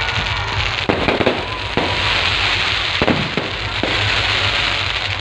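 Aerial fireworks going off: continuous dense crackling with several sharp bangs in among it.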